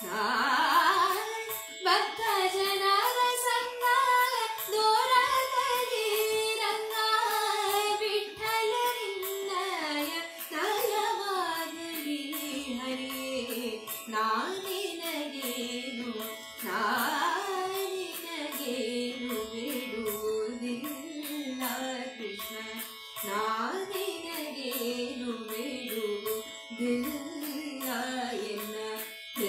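A female voice singing a Kannada devaranama in Carnatic style, the melody gliding up and down over a steady drone, with a light regular beat.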